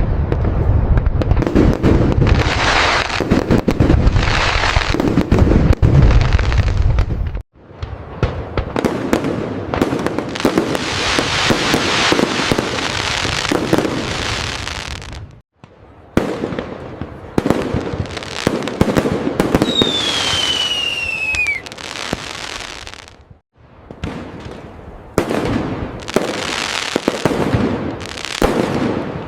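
Fireworks display: dense crackling and rapid bursts, with deep booms loudest in the first seven seconds. About twenty seconds in, a whistling firework's tone falls in pitch. The sound cuts off abruptly and restarts three times.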